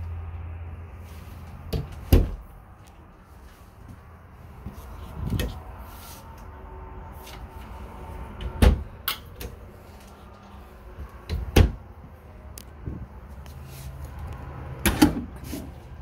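Wooden cabinet doors and drawers being opened and shut: a string of sharp knocks and clacks, the louder ones a few seconds apart.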